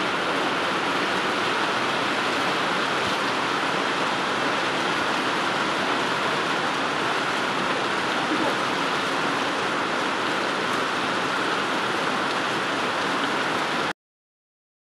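Heavy rain pouring down, a steady hiss that cuts off suddenly near the end.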